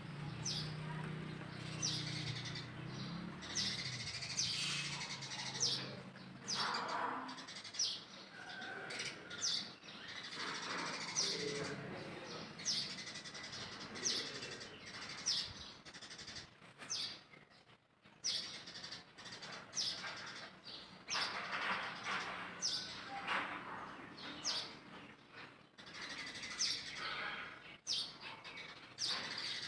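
Many short, high-pitched chirps, each dropping quickly in pitch, repeated irregularly throughout.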